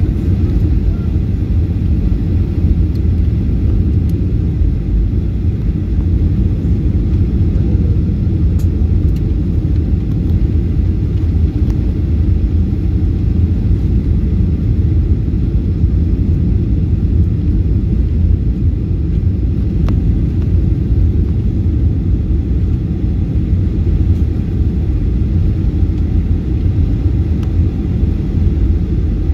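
Cabin noise inside a Boeing 737-800 on descent, heard from a window seat over the wing: a steady, low, even rumble of the CFM56 engines and rushing air.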